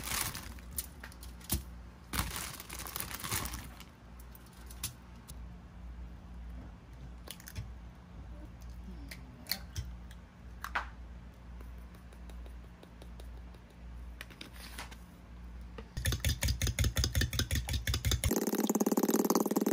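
Light handling sounds: plastic bag rustling and scattered clicks and taps of a metal spoon in a bowl. About 16 s in, fast, rhythmic beating of raw eggs with the spoon in the bowl starts and keeps on to the end.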